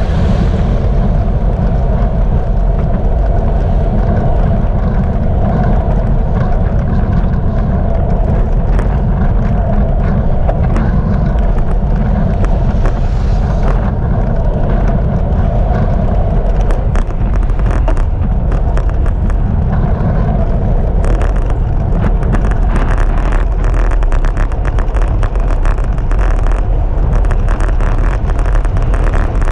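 Wind rumbling over a bicycle-mounted GoPro's microphone while riding along a road, together with tyre and road noise. From about halfway, a run of rapid clicks and rattles joins in.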